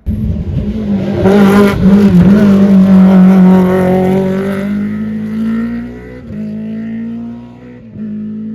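Rally car engine running hard as the car passes close by, a steady high-revving note with strong overtones that fades as it pulls away, broken twice near the end, as at gear changes.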